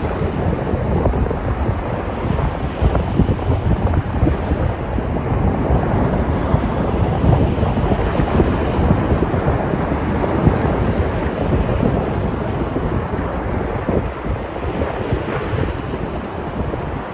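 Sea surf washing onto the shore in a steady, continuous rush, with wind buffeting the microphone.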